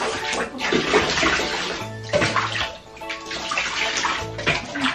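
Water splashing in a bathtub as the shampoo is rinsed off a wet cat, with background music of held notes playing over it.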